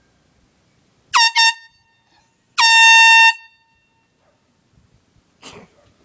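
Air horn blasting: two quick short blasts about a second in, then one longer blast of under a second, each a single steady high tone with many overtones.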